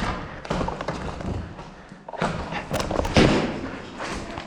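A run of irregular thumps and knocks, the loudest about three seconds in.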